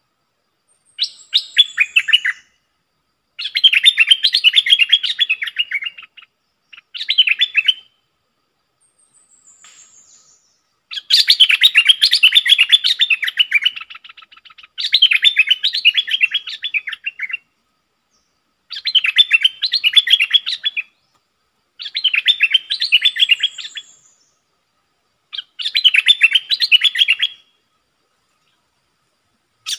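Stripe-throated bulbul singing: short bubbly, warbling phrases of one to three seconds, repeated with brief pauses. A few thin, high, falling notes come in between.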